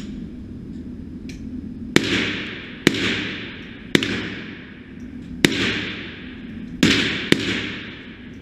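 .22 rimfire gunshots: six shots at an uneven pace, the first about two seconds in, each followed by a short echo that dies away.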